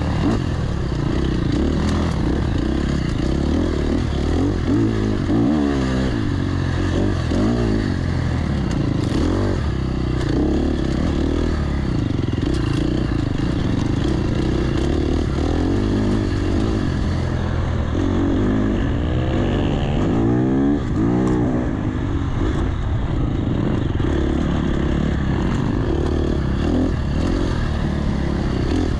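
Enduro dirt bike engine running under way, its pitch rising and falling again and again with the throttle, with occasional knocks over the steady engine noise.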